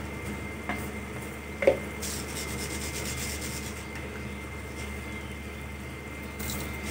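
Kitchen handling noises as things are moved about around an open mixer-grinder jar: a couple of short knocks, the louder one under two seconds in, then a stretch of rubbing and scraping, and a brief rustle near the end, over a steady low hum.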